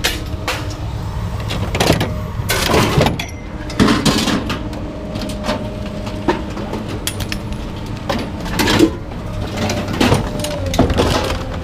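Pieces of scrap metal clanking and banging as they are pulled out and dropped, a dozen or so irregular impacts, loudest about three seconds in and again near nine seconds, over a steady low engine hum.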